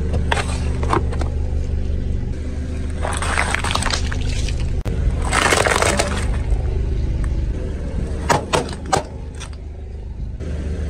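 A car tyre rolling over and crushing objects, with two drawn-out crunching, squashing stretches about three and five seconds in, then three sharp pops of small balloons bursting under the tyre, over a steady low hum.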